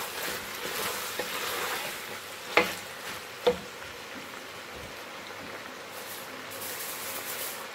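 Pork and onions sizzling as they fry in an aluminium pot, stirred with a wooden spoon, with two sharp knocks about a second apart near the middle.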